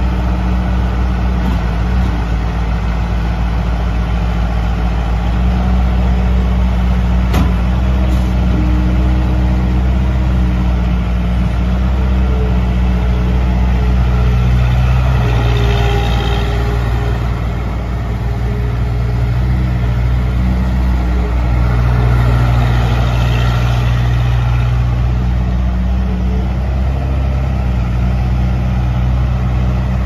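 Case 40XT skid steer loader's 60 hp Cummins diesel engine running steadily as the machine drives and works its bucket. The engine note shifts up and down several times, and there is a single sharp knock about seven seconds in.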